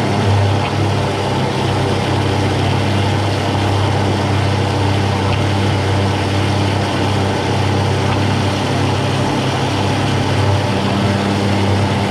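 Countertop blender running steadily, grinding unpeeled fresh ginger with water into a fine pulp: a steady low motor hum under the churning hiss of the liquid.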